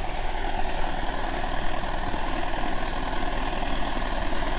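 Motorcycle engine running steadily at low speed, close to the microphone.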